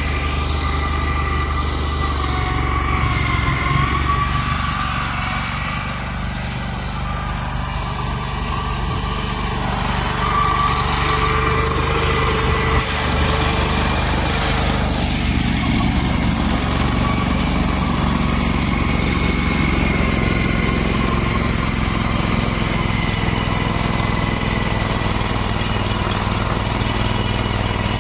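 Kohler CH730S 25 hp V-twin engine of a garden tractor running steadily under load while its front-mounted Simplicity snowblower clears deep snow. The sound dips a little for a few seconds, then comes back up.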